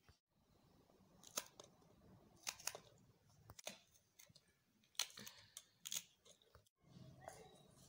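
Green chillies being snipped into pieces with scissors over a steel bowl: several short, crisp snips at irregular intervals, with pieces dropping into the bowl.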